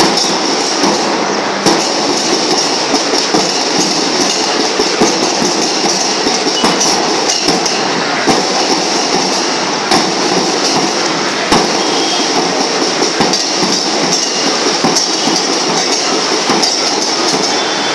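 School marching band (band melam) playing: drums beating continuously with bright cymbal crashes over them.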